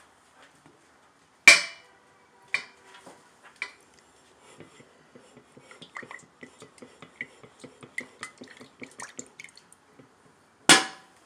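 Metal coffee pot and its lid being handled: a sharp clank with ringing about a second and a half in, two smaller clanks, then a run of light rapid taps and clicks, and another loud clank near the end.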